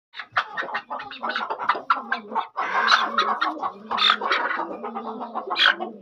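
Chickens calling in a rapid, continuous run of short calls and clucks.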